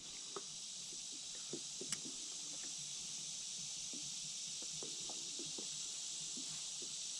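Steady high-pitched insect chorus from the reeds, with a few faint clicks and light taps.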